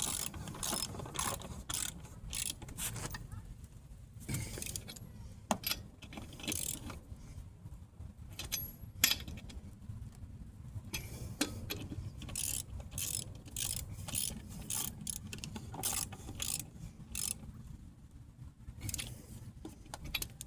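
Hand ratchet wrench clicking in short, irregular runs as bolts are worked on the wheel hub, over a steady low rumble.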